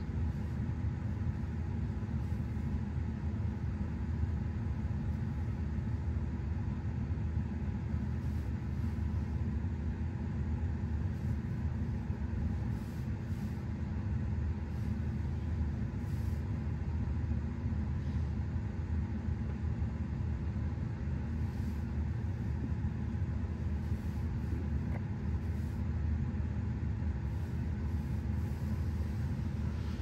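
Steady low rumble with a faint constant hum, heard inside a car cabin.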